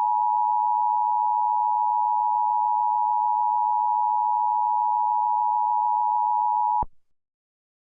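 Emergency Alert System attention tone: one steady electronic tone that cuts off abruptly about seven seconds in.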